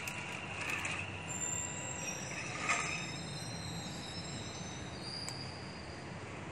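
Small electric drive motor of a 3D-printed RC tractor running as the tractor drives off, with a thin high whine that steps down in pitch through the middle. A sharp click about two and a half seconds in.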